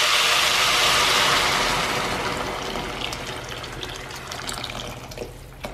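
Water poured in a steady stream from a jug into a cooking pot of red lentils and diced vegetables, splashing loudest at first and getting gradually quieter as the pot fills.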